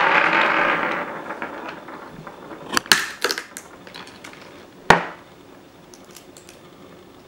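A clatter that fades away over the first second and a half as a bucket tips over on a wooden table. Then come a few clicks from a lever nutcracker being loaded and worked, and about five seconds in one sharp crack as a macadamia shell splits in its jaws.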